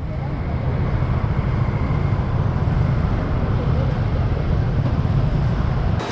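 Steady street traffic noise, a low rumble of scooters and cars on a busy road.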